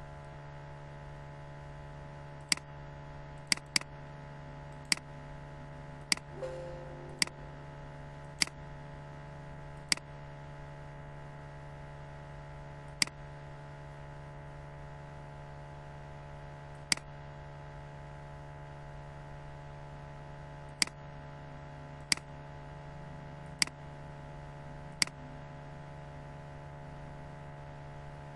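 Steady electrical hum under about fourteen sharp computer-mouse clicks at uneven intervals, bunched in the first eight seconds and then more spread out.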